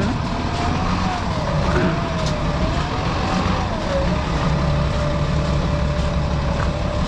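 City street traffic: a motor vehicle's engine running close by with a steady low hum, and a tone above it that wavers slowly up and down for about four seconds and then holds steady.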